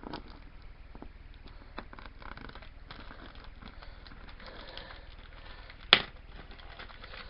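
Cardboard box packaging being handled: scattered light scrapes, rustles and small clicks, with one sharp click about six seconds in.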